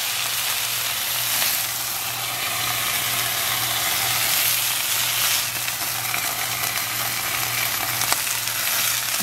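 Chicken breasts sizzling steadily as they pan-fry in oil in a nonstick skillet, with a steady low hum underneath and a single light tap about eight seconds in.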